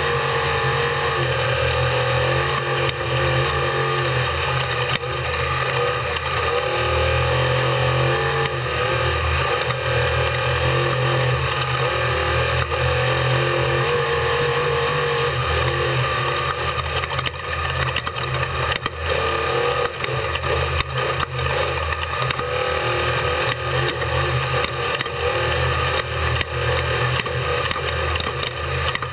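Unlimited-class desert race truck running hard at speed, heard from onboard, its engine note steady and loud. A run of knocks and rattles from the rough course comes through in the second half.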